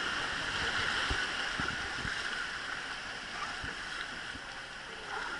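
Rushing white water of river rapids alongside a wooden river boat: a steady noisy rush that gradually fades as the boat moves into calmer water.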